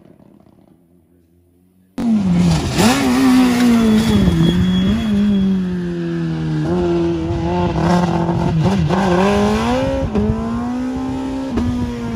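Rally car engine, faint for the first two seconds, then suddenly loud. It is driven hard through a bend, the engine pitch dropping and rising several times as the revs fall and climb between gear changes.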